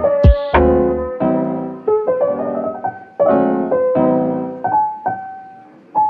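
Background music played on piano: chords and notes struck one after another, each left to ring and fade.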